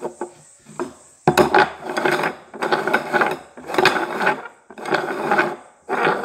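Upside-down cups being slid and shuffled across a wooden table: about five long scraping, rubbing strokes, each lasting about a second.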